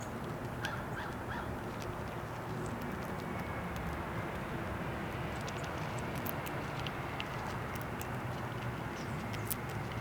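Steady outdoor background hum, with scattered small sharp clicks and a few short high chirps about a second in.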